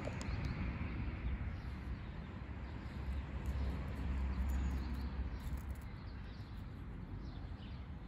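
Steady outdoor background noise with a low rumble, heaviest about halfway through, and faint high chirps.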